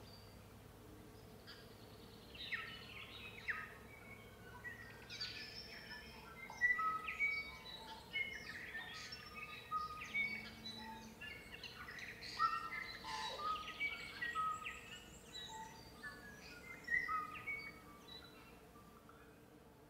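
Birds singing and calling: a busy, overlapping mix of chirps and short whistled notes that starts about two seconds in and thins out near the end, over a faint steady hum.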